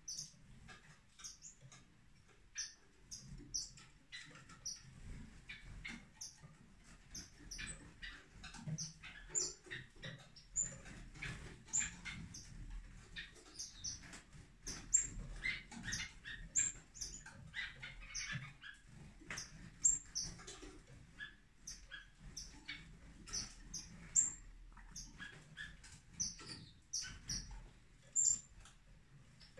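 A group of small estrildid finches calling: many short, high chirps and peeps, overlapping and scattered in quick succession.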